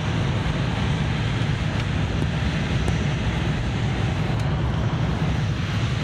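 Tohoku Shinkansen Hayabusa bullet train running at speed on the viaduct, heard inside the passenger car: a steady low rumble with a rushing noise over it.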